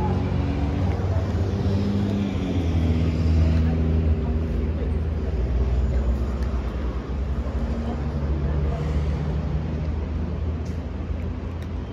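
A low, steady engine hum, its pitch stepping up or down every few seconds.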